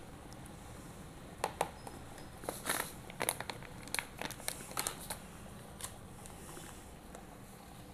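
Thin clear plastic packet crinkling and rustling as gloved hands handle it, an irregular run of short crackles and clicks lasting a few seconds, loudest in the middle.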